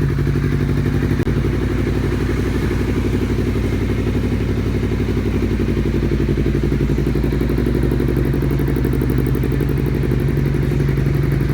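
Honda CBR250RR's parallel-twin engine idling steadily through an aftermarket R9 Austin carbon-titanium exhaust, a deep, even exhaust note with no revving.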